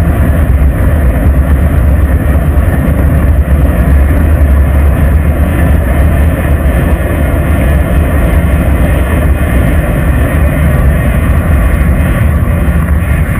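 Wind buffeting the microphone of a bicycle-mounted GoPro while riding on a paved road, with road noise from the tyres: a loud, steady, low rumble.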